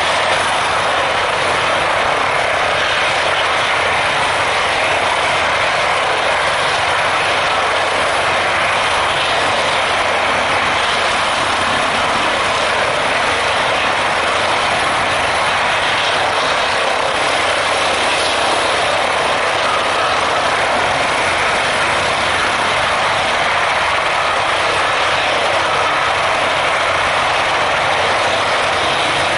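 Airbus ACH145 (H145 D-3) five-bladed helicopter hovering low, its twin Safran Arriel 2E turbines, main rotor and Fenestron tail rotor making a steady, even noise.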